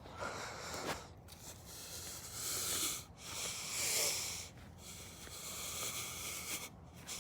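A person breathing audibly close to the microphone, in breathy swells about every one and a half seconds with short pauses between.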